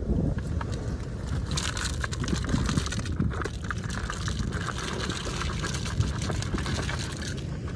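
Wind buffeting the microphone in a low rumble, with a hissing wash of seawater over rocks starting about a second and a half in and easing off near the end.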